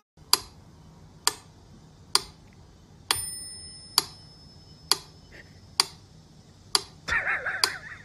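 Even ticking: sharp single ticks a little under a second apart, nine in all. A thin ringing tone comes in with the fourth tick and fades over about three seconds, and a short wavering sound follows near the end.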